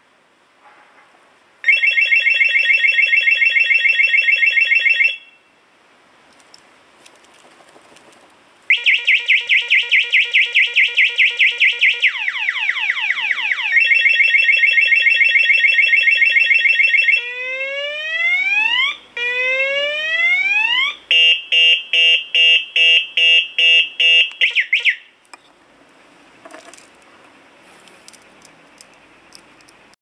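Cheap Chinese 12 V motorcycle alarm siren (Master Racing, rated 125 dB) running through its tone cycle: a steady warble, a pause, rapid pulsing beeps, quick falling sweeps, another warble, two long rising whoops, then fast pulsing beeps, cutting off about 25 seconds in.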